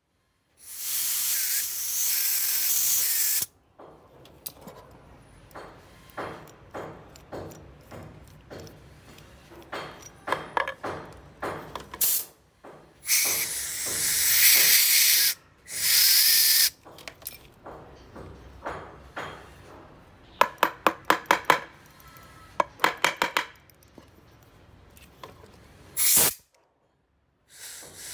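Compressed air from a trigger blow gun hissing through a small brass model steam siren in bursts: a long blast of about three seconds near the start, two shorter ones around the middle, then a quick run of about a dozen short puffs, with small handling clicks between. The siren gives only a rushing hiss without a clear note: it is not yet sounding properly and is being debugged.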